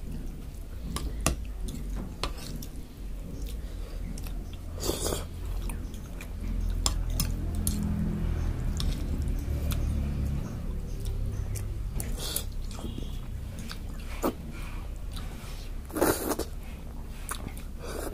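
Close-up eating sounds of a person chewing and slurping soft instant noodles, with short clicks of a metal fork against the plate and a few louder slurps.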